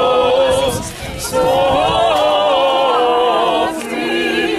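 Four men and women singing together a cappella, holding long notes with vibrato, with a short break for breath about a second in.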